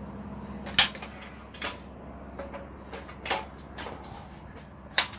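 Wooden log blank being set into a Jawhorse clamp stand and clamped, giving about five sharp knocks and clacks of wood and metal, the loudest near the end. A steady low hum runs underneath.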